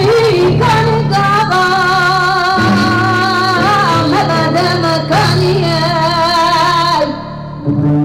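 A woman singing a long, wavering melody with slides between notes, live into a microphone, over an upright double bass. The music dips briefly about seven seconds in.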